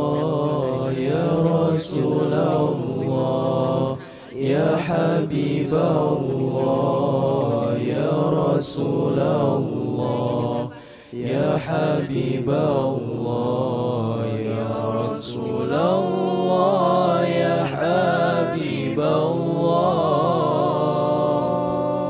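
Group of male voices singing an Arabic sholawat together into microphones, drawn-out ornamented phrases with no drumming. The singing breaks briefly for breath about four and eleven seconds in.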